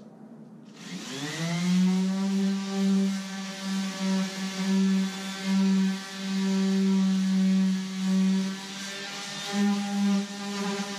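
Electric orbital sander switched on about a second in, its pitch rising as it spins up, then running steadily against the canoe hull, its loudness swelling and dipping as it works.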